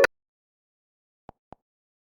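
An Android ringtone cuts off right at the start, followed by near silence broken by two faint clicks about a quarter second apart just past the middle.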